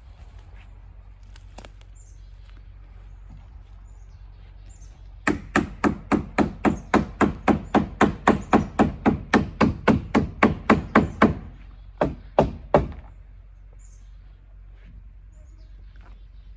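Hammer striking wood: a fast, even run of blows at about four a second for some six seconds, followed by three last separate blows.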